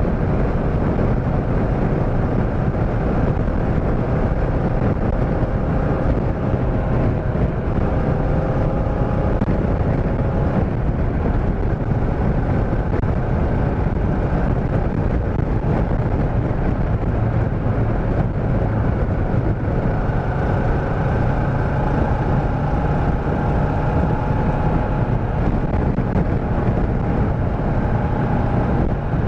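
Motorcycle riding at speed: the engine runs under a steady rush of wind noise, and its pitch shifts a few times.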